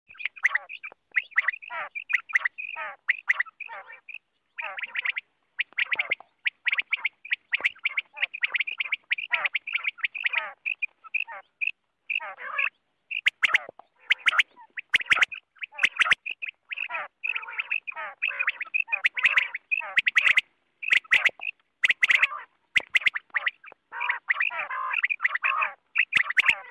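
Common quail calling: a rapid, nearly unbroken series of short harsh notes, with sharp clicks scattered through.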